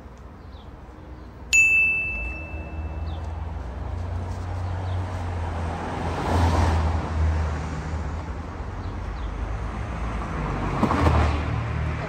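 A single sharp metallic ding about a second and a half in, ringing out for about a second. Then steady street traffic noise that swells twice as vehicles pass.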